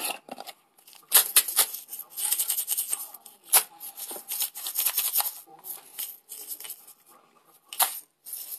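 Dry dyed rice rattling and sliding inside a plastic bottle as it is tilted and shaken, in clustered bursts mostly over the first five seconds, with a couple of sharp clicks.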